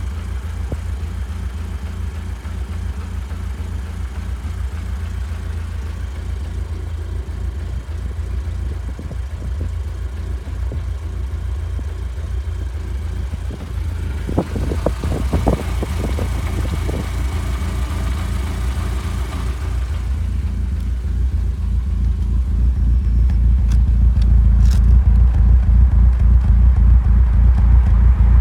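Audi S3 (8P) 2.0 TFSI turbocharged four-cylinder engine idling roughly, a steady low running sound with an uneven pulse. A few short knocks come near the middle, and the engine sound grows louder over the last third.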